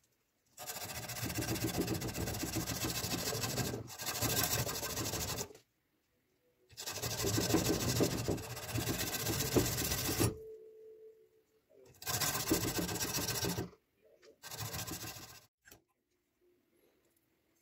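A steel cleaver blade held in a vise is rubbed with an abrasive by hand in fast back-and-forth strokes, a dense scraping sound. It comes in four spells: two of several seconds, then two short ones, with pauses between them.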